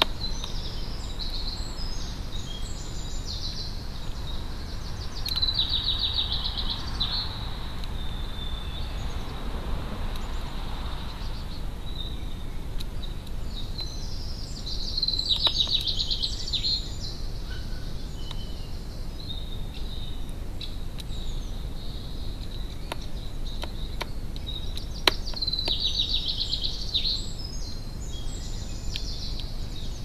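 A songbird singing short phrases of two to three seconds, repeated four times at intervals of several seconds, with a few sharp taps scattered between them over a steady low rumble.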